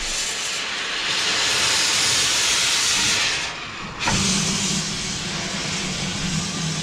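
Steam locomotive hissing as it vents steam, a loud steady hiss. About three and a half seconds in the hiss drops briefly, then comes back with a low steady hum beneath it.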